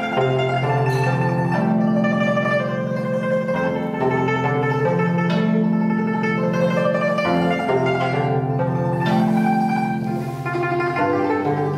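Mongolian zither (yatga) music: plucked strings playing a melody over low held notes, with the harmony shifting every second or two.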